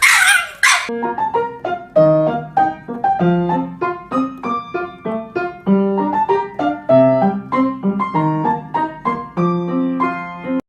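Piano music, a melody of separate notes at a moderate pace that cuts off suddenly at the end. It is preceded by a short, loud noisy burst at the very start.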